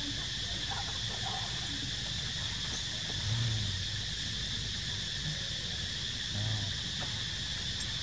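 Steady, high-pitched insect chorus droning without a break. A brief low rumble comes about three seconds in and again about six and a half seconds in.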